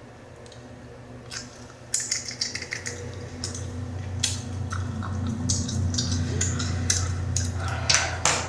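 Bubblegum being snapped and popped in the mouth while chewing: a string of sharp, separate snaps, a few at first and then coming thick and fast through the second half, over a low steady hum.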